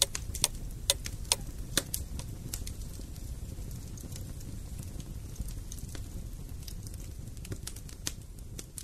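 Wood fire crackling in a fireplace: scattered sharp pops and snaps, more frequent in the first two seconds and sparser after, over a low steady rumble.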